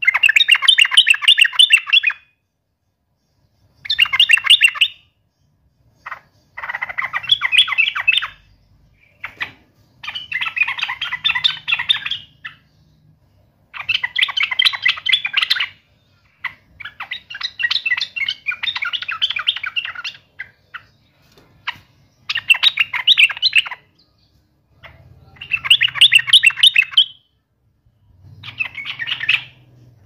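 Yellow-vented bulbul singing: about ten bursts of fast, chattering song, each lasting one to three seconds, with short pauses between them.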